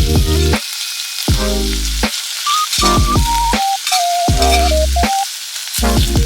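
Background music, a simple melody of held notes over bass pulses that stop and start in a regular pattern, over a steady sizzle of food frying in a pan.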